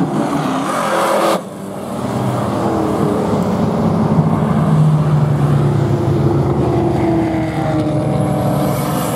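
Several cars' engines running and revving as they drive along a race track. The sound changes abruptly about a second and a half in, then rises again as cars come closer.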